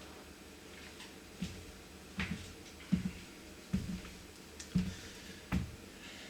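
Six dull thumps in a loose, even series, about one every three quarters of a second, each with a faint click.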